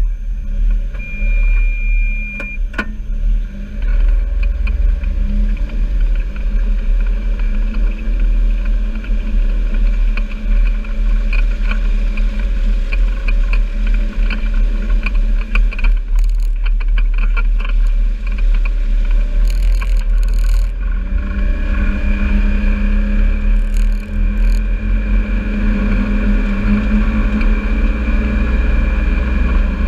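John Deere Gator 825M utility vehicle's three-cylinder gasoline engine running as it is driven, a steady low rumble.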